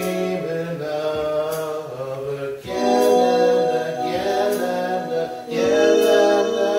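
Musical accompaniment of sustained, droning chords that change about every three seconds, with a light high tick about every second and a half.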